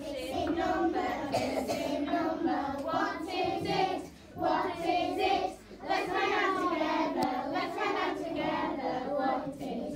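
A class of young children singing a song together in unison, in phrases with short breaks.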